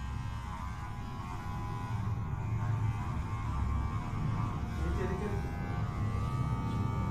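Electric hair clippers buzzing steadily while trimming a child's hair, with background music.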